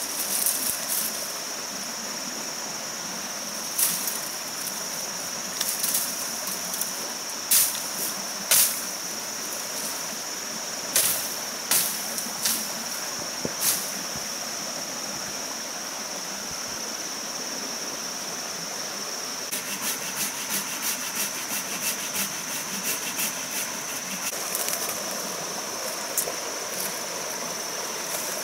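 Steady high-pitched insect drone, with scattered sharp knocks as bamboo is cut. Near the end comes a fast run of sawing strokes through bamboo.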